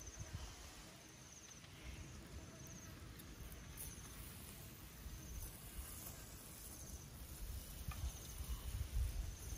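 Insects chirping in short, repeated high bursts every second or two, over a faint low rumble.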